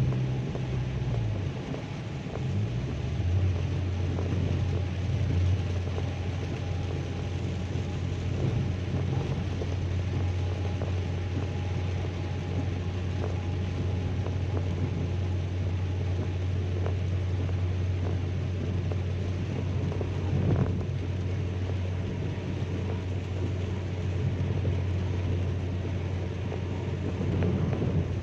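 A car's cabin while driving in heavy rain: a steady low engine and road drone under an even hiss of rain and tyre spray. The drone drops in pitch about two to three seconds in.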